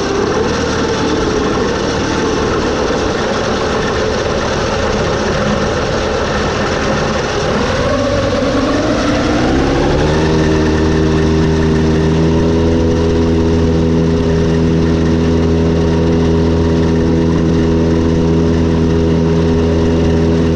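Tractor engine running a Vermeer TM disc mower on a test run after a drive-pod rebuild. About eight seconds in, the engine speeds up and then holds a steady, higher speed.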